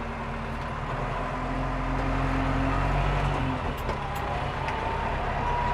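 Landini tractor engine running under way, heard from inside the cab, swelling slightly a couple of seconds in. A faint high whine comes in near the end.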